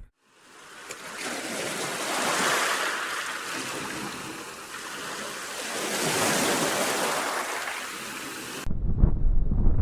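Rushing water noise, like surf, swelling twice as two waves wash in. Near the end it cuts to a low buffeting wind on the microphone.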